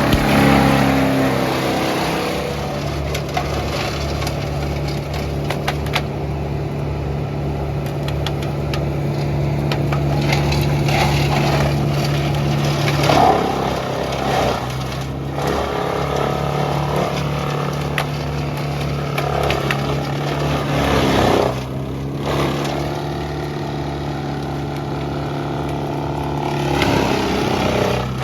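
An engine running steadily, its pitch dipping briefly a few times, with scattered sharp knocks and cracks over it.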